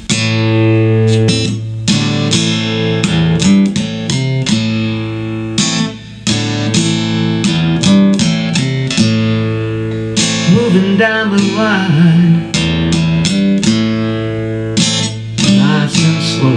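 Guitar playing a slow blues introduction: picked notes and chords over a steady low bass line, with a few wavering, bending notes around the middle.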